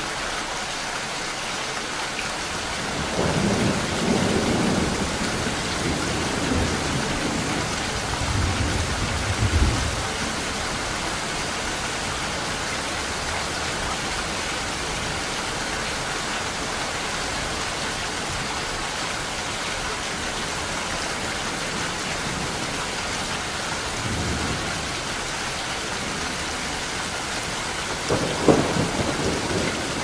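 Heavy rain falling steadily, with rolls of thunder: a long rumble from about three to ten seconds in, a short one around twenty-four seconds, and another near the end.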